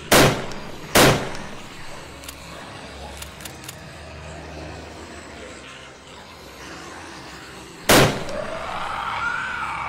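Three gunshots: two about a second apart at the start and a third about seven seconds later, over a low steady background.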